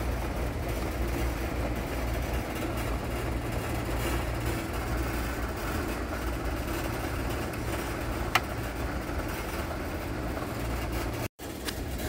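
Steady low hum and rushing noise of running building HVAC equipment, with one sharp click about eight seconds in. The sound drops out for an instant near the end.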